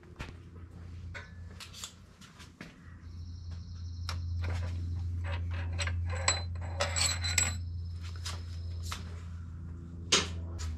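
Scattered metallic clinks and taps of hand tools and loose clutch parts being handled. A steady low hum comes in about three seconds in and keeps going.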